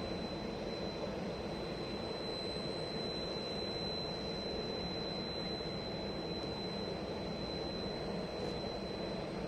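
Private jet's turbine engines running steadily on the ground, a constant rumble with a high, unwavering whine.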